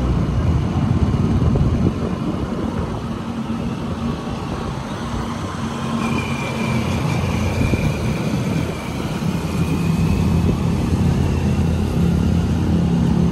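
Suzuki motor scooter under way in traffic: a steady low rumble of its engine and the rush of riding, with other cars and motorcycles around.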